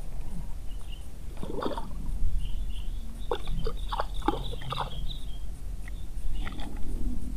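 A run of short, sharp animal calls, bunched between about one and a half and five seconds in, with a few more near the end, over a steady low rumble.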